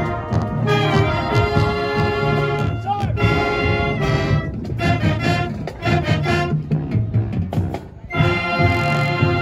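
HBCU-style high school marching band playing: sousaphones, trumpets and other brass over flutes, clarinets and saxophones, with a rhythmic bass line. The music breaks off for a moment about eight seconds in and starts again.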